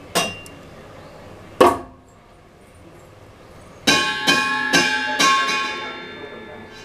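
Two sharp knocks, then a run of about five quick metallic strikes, each ringing on in several high tones before fading out: metal cookware being struck.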